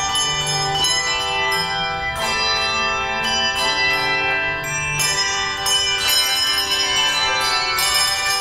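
Handbell choir ringing a piece: chords of struck bells, several notes at a time, with new strikes every half second or so and each note ringing on over the next.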